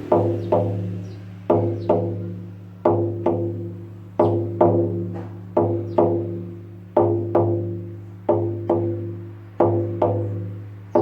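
Lakota healing frame drum beaten in a heartbeat rhythm: pairs of strokes about half a second apart, one pair roughly every second and a half, each stroke ringing on with a low hum.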